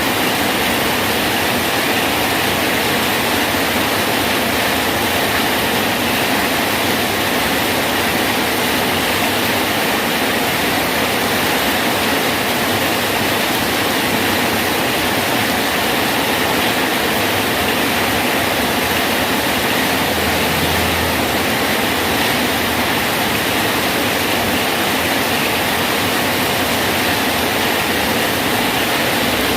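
Heavy rain falling steadily on a bridge, a dense even hiss with no breaks.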